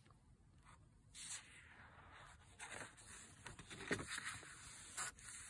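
Paperback picture book being opened and its title page pressed flat by hand: faint paper rustling and sliding, with a few soft clicks.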